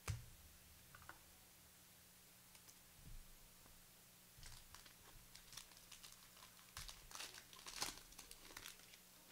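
Faint handling of trading cards and foil pack wrappers: soft crinkles and light clicks, scattered at first and coming closer together in the second half, over a faint steady hum.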